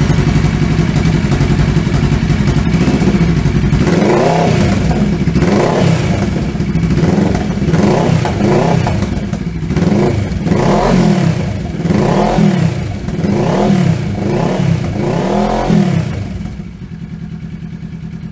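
2015 Kawasaki Versys 650's parallel-twin engine running through an IXIL L3X Dual Hyperlow XL exhaust with the baffles removed. Having just started, it idles, is revved about ten times in quick throttle blips, and settles back to a steady idle near the end.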